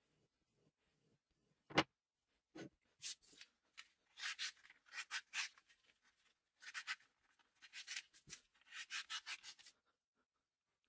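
A freshly sharpened hatchet blade slicing through a sheet of paper in a run of short hissing strokes, a sharpness test of the new edge. Before the slicing, a knock and a fainter one on the wooden bench.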